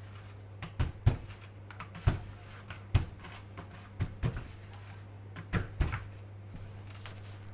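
Wooden rolling pin working patongko dough on a board, giving a series of irregular knocks, over a steady low hum.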